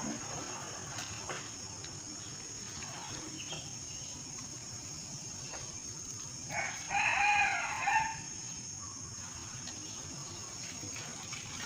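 A rooster crowing once, about six and a half seconds in, a pitched call lasting around a second and a half.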